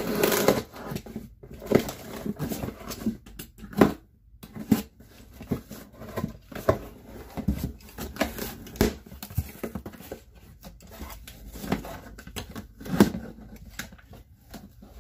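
Cardboard shipping box being opened by hand: packing tape cut and pulled, and the box handled and its flaps pried open, giving irregular scrapes, taps and rustles of cardboard.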